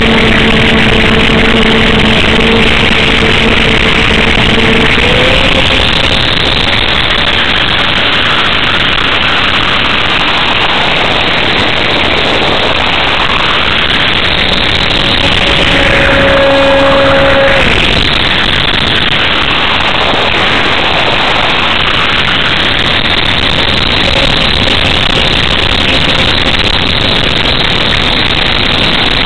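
Electric pusher motor and propeller of a Multiplex EasyStar RC plane running in flight, heard from an onboard camera under heavy wind rush over the microphone. The motor's hum steps up in pitch about five seconds in, and midway the rushing sound sweeps down and back up in pitch as the plane banks.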